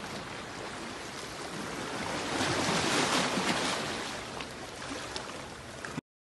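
Small sea waves washing and splashing over shoreline rocks, swelling louder about two and a half seconds in; the sound cuts off abruptly near the end.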